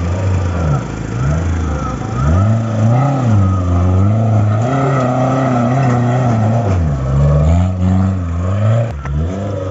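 Modified Maruti Gypsy off-road 4x4's engine revving up and down over and over as it crawls up a steep dirt climb under load, its pitch swelling and dropping every second or two. There is a short sharp click near the end.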